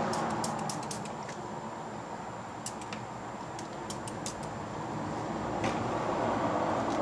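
Ratchet wrench clicking in short irregular runs while turning a rusted suspension bolt at the front wheel knuckle, over steady background noise.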